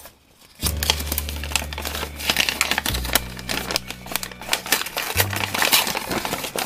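Thin paper bag crinkling and rustling as the washi tape sealing it is peeled off and the bag is pulled open, over background music with a steady bass line that comes in about half a second in.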